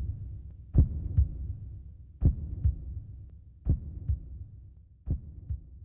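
Heartbeat sound effect: four slow lub-dub double thumps about a second and a half apart, each quieter than the last as it fades away.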